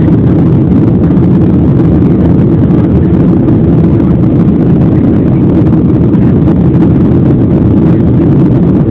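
Steady, loud roar of a jet airliner's engines and rushing air, heard from inside the passenger cabin in flight.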